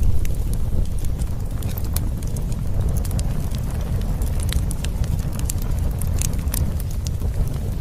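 Wood campfire burning, with frequent irregular crackles and sharp pops over a steady low rumble.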